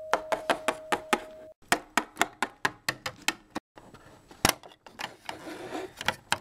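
Quick light tapping footsteps, about five a second, with a short pause about three and a half seconds in and one sharper click soon after. A held doorbell chime note ends about a second and a half in.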